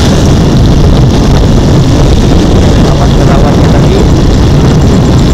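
Steady, loud engine and road noise of a vehicle on the move, heard from on board.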